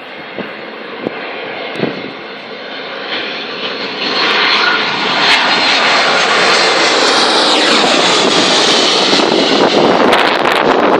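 Jet airliner on its landing approach passing close overhead: the engine sound builds and becomes loud about four seconds in, its whine falling in pitch as the plane goes by. Wind buffets the microphone near the end.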